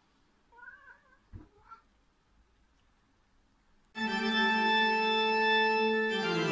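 A cat gives one short, wavering meow about half a second in, followed by two light knocks. From about four seconds in, loud background music with long held chords takes over.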